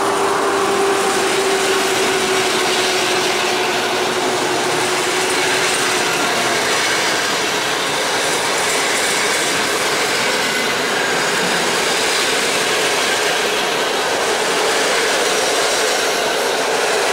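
PKP Intercity passenger coaches rolling past along the platform track. Their wheels rumble and clatter steadily on the rails, with a faint whine that fades out in the first few seconds.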